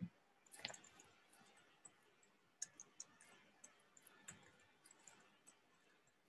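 Faint computer keyboard typing: scattered, irregular key clicks as digits are entered.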